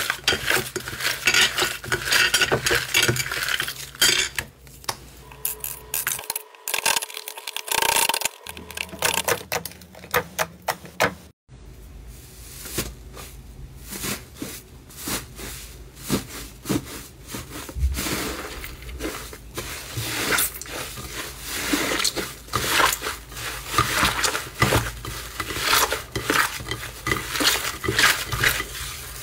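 Slime being squeezed, pressed and poked, giving dense crackling and popping clicks. The sound breaks off sharply about eleven seconds in and resumes as another batch of crackly slime.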